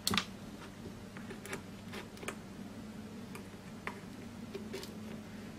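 RCA plugs being handled and pushed into an amplifier's rear input jacks: a sharp click just after the start, then scattered small clicks and taps of plastic and metal, over a faint low hum.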